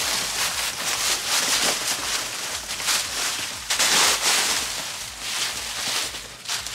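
Dry fallen leaves rustling and crunching as raccoons move and forage through them, loudest about four seconds in.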